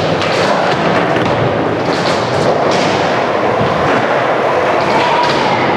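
Skateboard wheels rolling on a concrete floor: a steady, loud rolling noise with a few sharp clacks and knocks from the board.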